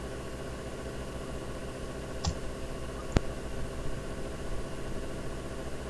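Two sharp computer mouse clicks about a second apart, over a steady low hum of room noise.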